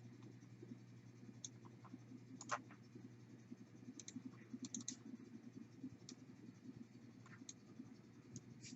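Faint, irregular clicks of a computer mouse and keyboard, about ten scattered over the stretch, the loudest a little over two seconds in, over a low steady hum.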